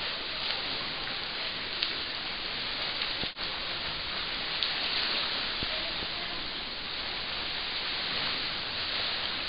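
Continuous splashing and rushing of water from swimmers in a pool, with a brief break about a third of the way in.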